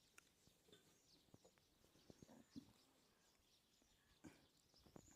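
Near silence, with a few faint short ticks.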